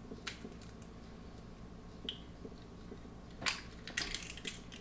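Eggshell cracking and being pulled apart by hand: a few light clicks, then a quick cluster of crisp crackles about three and a half seconds in as the shell splits open.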